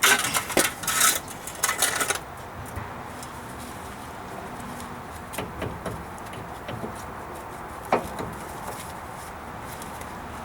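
Metal tools and parts clanking and clinking in quick bursts for about two seconds, then quieter scattered taps and clicks of tool handling, with one sharp click about eight seconds in, while the axle bolts are being removed.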